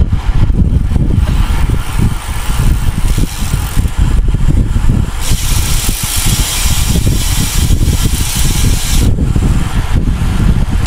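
Wind buffeting the microphone of a bicycle-mounted camera at race speed, a loud, uneven low rumble. A steady hiss joins it about five seconds in and stops about four seconds later.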